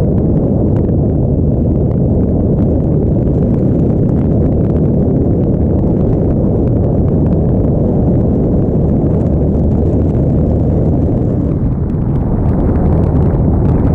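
Engine and airflow noise of a light aircraft in flight, heard from the cockpit: a loud, steady, low-pitched noise with no change in pitch.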